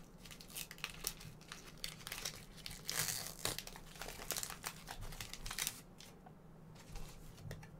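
Foil wrapper of a Pokémon card booster pack crinkling and being torn open by hand, a dense run of sharp crackles that stops about six seconds in.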